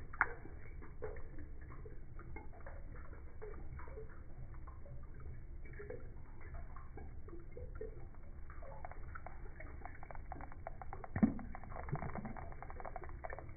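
Slowed-down aquarium water noise: a steady low hum under many small ticks and crackles. There is a sharp tick right at the start and a dull knock about eleven seconds in.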